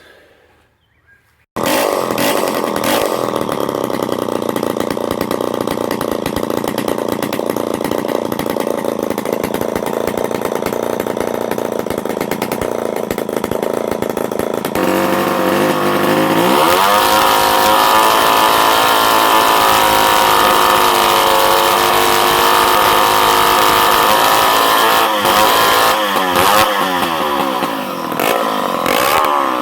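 Small two-stroke chainsaw engine running steadily. About halfway through it revs up and holds at a higher speed, wavering a little near the end.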